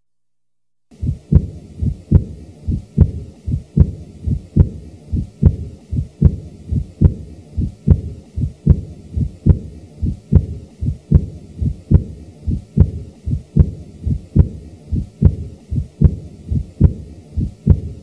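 Recorded heart sounds from a stethoscope, with a regular beat of about 75 a minute and a murmur between the heart sounds. The beat starts about a second in.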